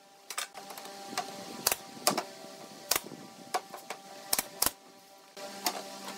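Pneumatic brad nailer firing nails into pine boards: about ten sharp shots at irregular intervals, with a short lull just before the last second.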